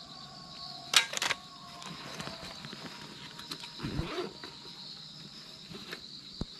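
A metal camera tripod being packed up: a sharp cluster of clicks and clatter about a second in, then a dull thump and rustle around four seconds as gear is set down on the leaf-covered ground. A steady high insect drone runs underneath.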